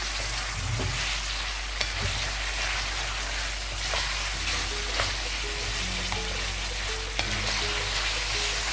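Vegetables and mutton sizzling in hot oil in a small metal kadhai, a steady frying hiss with a few sharp clicks. Soft background music with held notes comes in about halfway.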